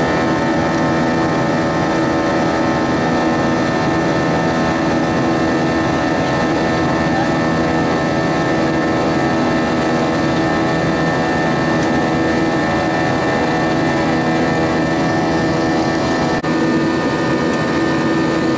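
Cabin noise of an Airbus A320-232 in flight: its IAE V2500 turbofan engines give a steady hum with several held tones over the rush of air. Near the end there is a brief dip, after which some of the tones drop away.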